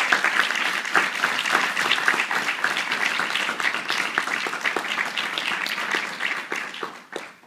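Audience applauding, a dense patter of hand claps that thins out and stops about seven seconds in.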